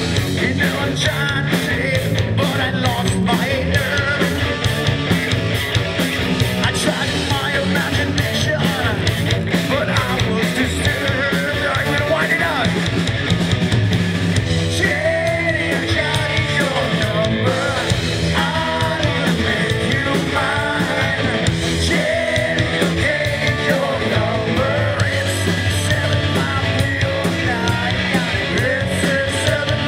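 Loud rock song with singing over a fast, steady beat.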